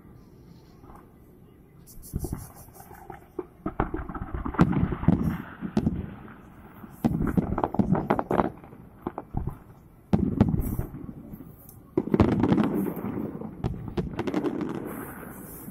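Fireworks display: shells bursting in several volleys of booms and sharp crackles, beginning about two seconds in and coming in clusters with short lulls between them.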